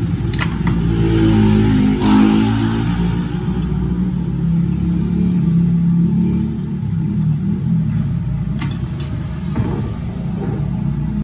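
A motor engine running loudly and steadily, its pitch rising and falling like an engine being revved. A few sharp ticks come through near the start and again about eight and a half seconds in.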